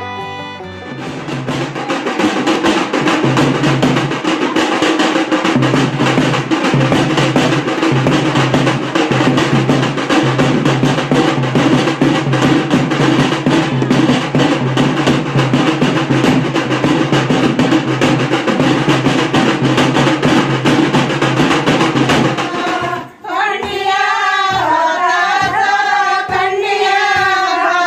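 A group of drums beaten with sticks, playing a loud, dense, steady rhythm. Near the end the drumming stops and voices sing.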